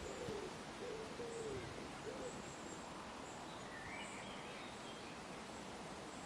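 Quiet countryside ambience with a steady hiss of wind. There are a few faint, low hooting or cooing bird calls in the first couple of seconds, and a faint higher bird call about four seconds in.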